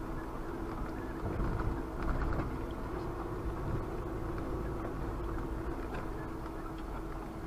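A vehicle driving along a snowy forest track: steady low engine and tyre rumble with a constant hum, briefly louder about two seconds in.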